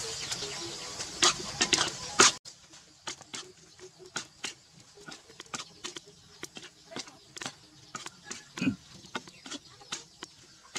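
Metal spatula scraping and clacking against a large wok as minced pork and basil are stir-fried, with sizzling in the first couple of seconds. The sizzle cuts off suddenly about two seconds in, leaving quieter, irregular clicks and scrapes of the spatula on the pan.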